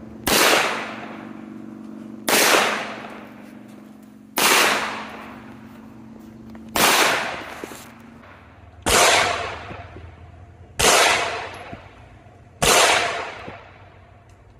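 Canik 9mm pistol firing seven single shots, slow and evenly paced about two seconds apart, each shot ringing out for about a second.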